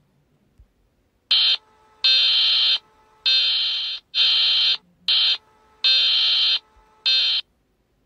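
Electronic emergency alert tone sounding in seven beeps of uneven length, some short and some long, starting about a second in: a high steady pitched alarm signal.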